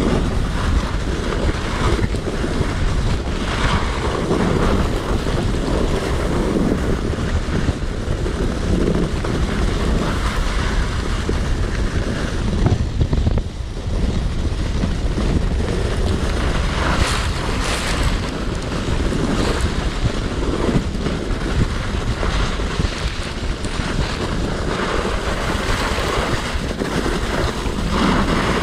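Wind buffeting the microphone as a skibob glides downhill, with the steady hiss and scrape of its skis over rutted, packed snow and a few sharper scrapes and jolts along the way.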